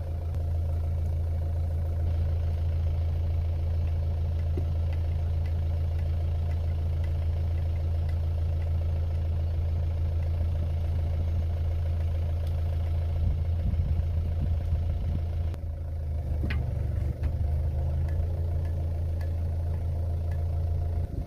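Hitachi EX60 mini excavator's diesel engine running steadily, with a brief dip in level about two-thirds of the way through and a light click shortly after.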